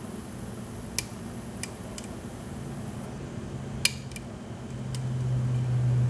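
A steel lock pick clicking against the pins of a 6-pin Schlage large-format interchangeable core, tensioned in a vise: about six sharp metallic clicks at irregular intervals as the pins are worked toward setting. A low hum swells louder near the end.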